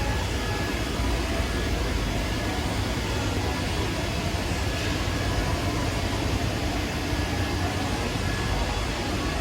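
Steady machine-shop noise: running industrial machinery with a strong low hum and a few faint steady tones, unchanging throughout.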